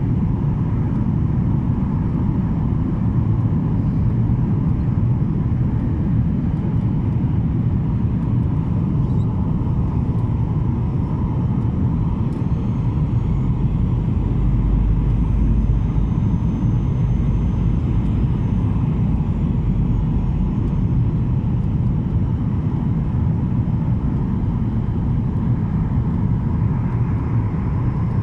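Steady cabin noise of a Boeing 737-800 airliner in flight: an even rumble from the jet engines and airflow, with a faint steady hum above it.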